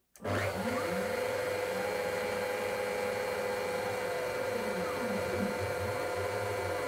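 Spindle motor of a wood-cutting CNC router starting right at the beginning and then running at a steady speed, a steady mechanical whine with several held tones.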